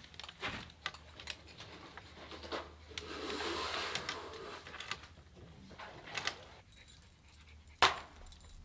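Tool belts rattling and small clicks of a tape measure being pulled out and used. About eight seconds in comes one sharp snap, a chalk line being snapped on the wall to mark the next course.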